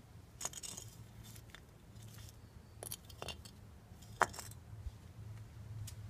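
A handful of light metallic clinks and jingles, irregularly spaced, over a faint steady low hum.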